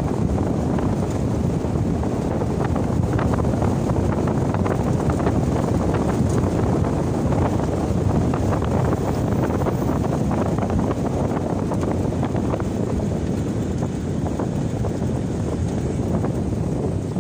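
Steady wind buffeting a phone microphone held out of the window of a moving car, with the car's road rumble underneath.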